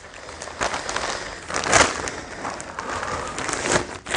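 Plastic postal parcel bag being pulled and torn open by hand: continuous crinkling and rustling of the plastic, with a few sharper, louder crackles.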